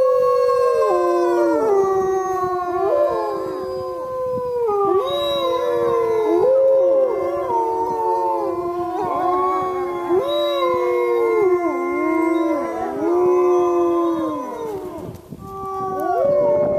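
A pack of wolves howling in chorus, several voices overlapping and gliding up and down in pitch. The howling dips briefly near the end, then starts up again.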